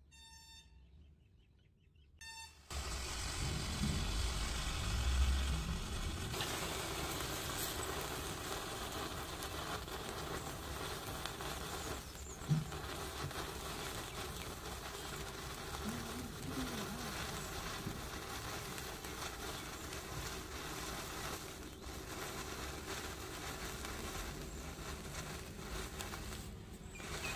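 Faint beeping for the first two seconds, then Diwali sparklers catch and fizz and crackle steadily as they burn, with one sharp pop about halfway through.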